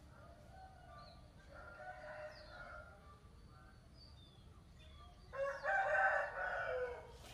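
Roosters crowing: a fainter crow about two seconds in, then a louder, long crow from about five seconds in. Small birds chirp faintly in between.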